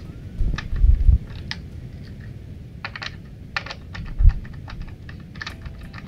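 Small clicks and taps of a screwdriver driving the tiny retaining screw that holds down a laptop's M.2 Wi-Fi card, with a few dull thumps from handling, the loudest about a second in and just after four seconds.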